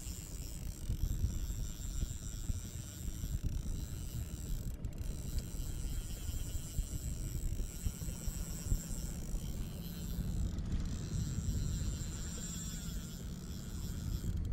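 Spinning reel's drag buzzing steadily as a hooked tuna pulls line off a nearly empty spool, under a steady low rumble.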